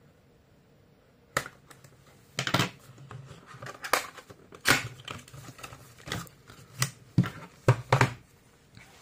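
Cardboard packaging being opened by hand: after a sharp snip about a second and a half in, irregular rustling, scraping and tapping of cardboard as a flap is pulled open and an inner tray slid out.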